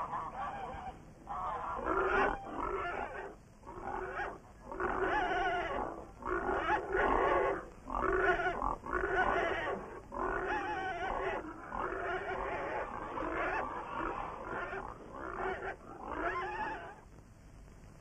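A run of loud vocal cries or calls, each about half a second to a second long with a wavering pitch, repeating every second or so and stopping near the end.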